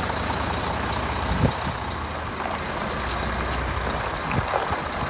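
Concrete mixer truck's diesel engine running steadily as the truck drives slowly across the yard.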